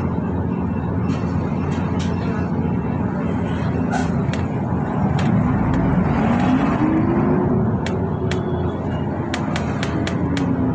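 Transjakarta bus running with a steady low engine drone and road noise. Around the middle the engine note rises and then falls again, and scattered light clicks and rattles come through, more often near the end.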